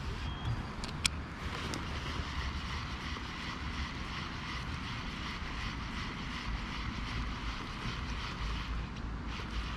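Steady low rumble of wind on the microphone over the whir of a baitcasting reel being cranked to bring a topwater lure back. There is one sharp click about a second in.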